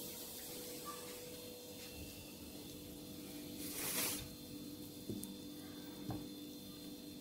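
Faint kitchen handling over a steady low hum: a brief rustling hiss about four seconds in, then two soft knocks as halved red onions are set into a pot of sauce-covered meat.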